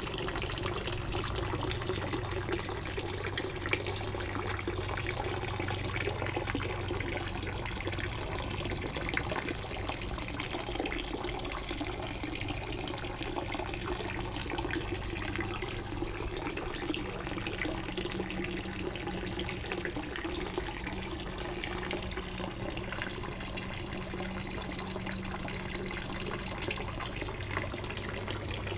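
Dolphin statue fountain pouring a thin stream of water from its mouth into a garden pond, a steady splashing trickle.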